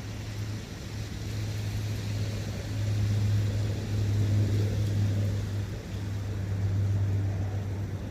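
Wind in a forest by a brook: a steady rushing with a low rumble, swelling louder in the middle for a couple of seconds and easing off again.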